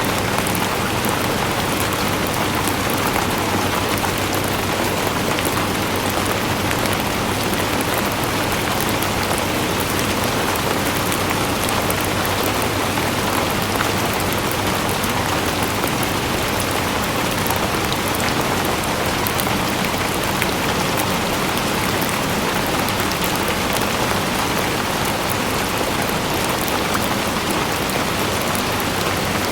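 Steady rainfall, with dense drops pattering on a surface and a constant hiss of falling rain.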